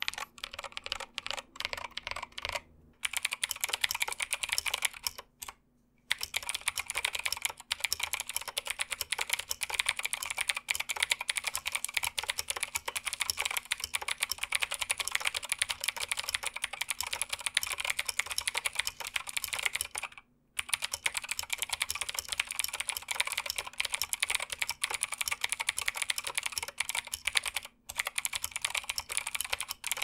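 Typing on a Keychron K8 mechanical keyboard with Gateron Blue clicky switches. For the first few seconds the switches are lubed and their click comes and goes unevenly. After a short silence, steady fast typing on stock Gateron Blues runs on with a couple of brief pauses.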